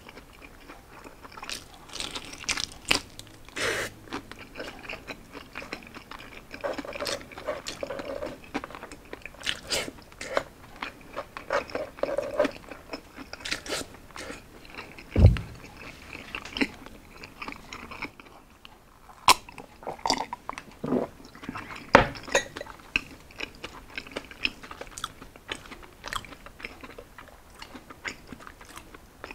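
A person biting, chewing and crunching crispy roast pork belly (liempo), with scattered crackles and wet mouth clicks. Two heavier thumps stand out, one about halfway through and another about three quarters through.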